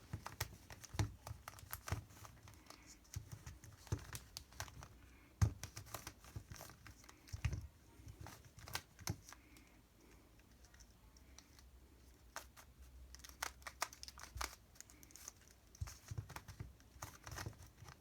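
Plastic MoYu Redi Cube twisty puzzle being turned by hand: clusters of quick clicks and clacks with short pauses between, as it is worked through a solve.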